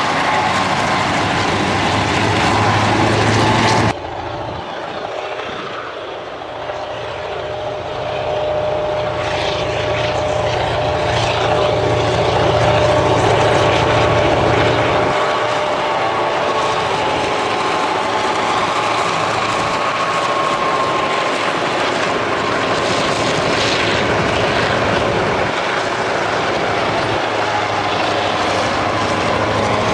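Victorian Railways T class diesel-electric locomotives, EMD two-stroke diesels, running under load as they haul a passenger train past, a steady engine drone with the rumble of the train. The sound changes abruptly about four seconds in, and again later, as the shots cut.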